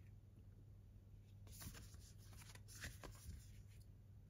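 Faint rustling and sliding of paper and card being handled, a few soft brushes between about one and a half and three and a half seconds in, over a low steady hum.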